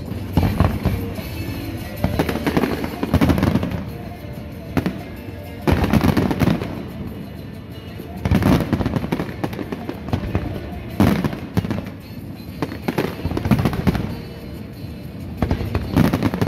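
Aerial fireworks display: shells bursting in a rapid, irregular series of booms and bangs, with crackling between them and a loud cluster every couple of seconds.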